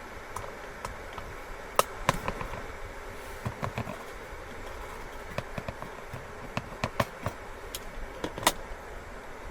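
A pot of water and food heating toward the boil: a steady hiss with scattered, irregular pops and clicks.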